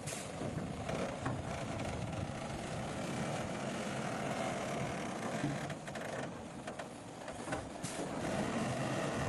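Diesel engines of heavy earthmoving machinery, a bulldozer and dump trucks, running steadily, with a few short knocks.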